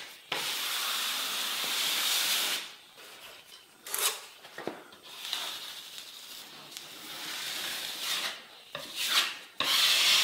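Steel drywall taping knife scraping setting-type joint compound across drywall screw heads in repeated strokes: a long scrape near the start, several shorter ones, and a louder, longer scrape near the end.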